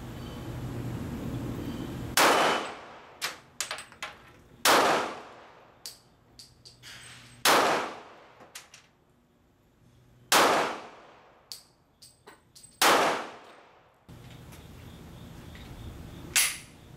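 Glock 23 pistol in .40 S&W fired slowly, five loud shots about two and a half seconds apart, each ringing away afterwards, with light metallic clinks between them. A sixth, quieter shot comes near the end.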